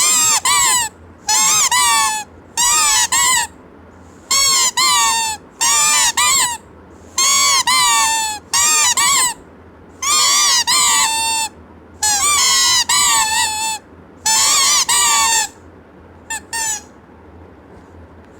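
Squeaky baby squeeze toy squeezed and released over and over: about a dozen loud, high, wavering squeaks, most in quick pairs, with short pauses between; the last one near the end is short and faint.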